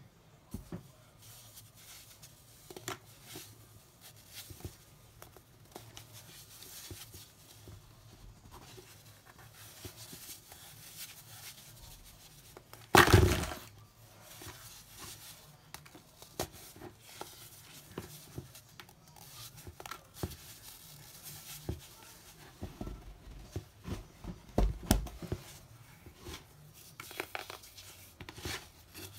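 Hands crushing a hard, over-dried block of moulded baking soda: scattered soft crunching and crumbling, with one loud crack about thirteen seconds in and a run of louder crunches near the end.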